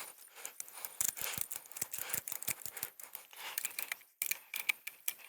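Ratchet strap being cranked tight to hold a lock-on tree stand: a run of sharp metal clicks, several a second, with some rattling.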